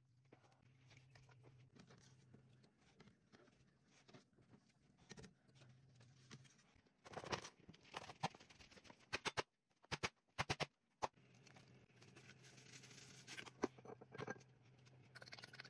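Quiet kitchen sounds over a faint low hum, with a cluster of sharp knocks about seven to eleven seconds in: a steel cleaver chopping lemongrass stalks on a plastic cutting board.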